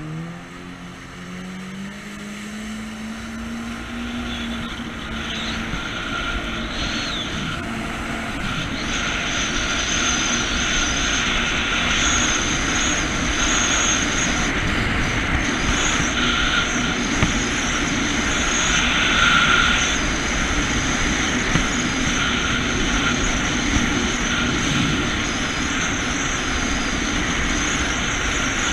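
Jet ski engine accelerating, its pitch rising over the first few seconds, then running steadily at speed. A loud rush of water and wind builds over it and stays up.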